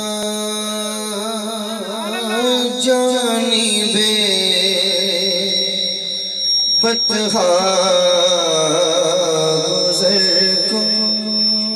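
A man singing devotional verses through a microphone and loudspeakers, in long, wavering held notes with a steady low drone beneath. A thin, steady high whine runs under the singing from about a third of the way in.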